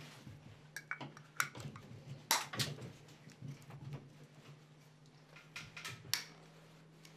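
Light clicks and metallic taps from handling a recessed downlight: its aluminium housing, spring-steel mounting clips and lamp socket being turned and fitted by hand. The sharpest clicks come about two and a half seconds in and again near the end.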